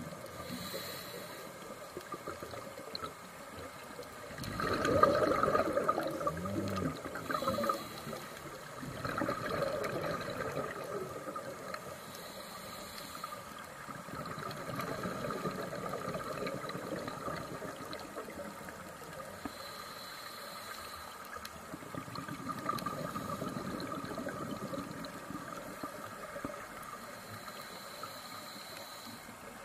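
Underwater sound of scuba breathing: a diver's exhaled bubbles bubbling and rushing in swells every several seconds over a steady underwater hiss. The loudest swell comes about five seconds in.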